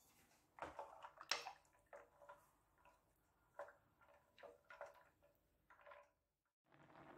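Faint, irregular taps and soft swishes of a wooden spoon stirring penne in a saucepan of water.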